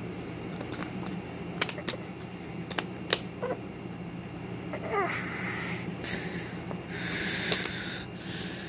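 Clear plastic DVD disc trays being handled: several sharp clicks and taps in the first few seconds, then short plastic squeaks and two breathy rushes of rubbing noise, over a steady low hum.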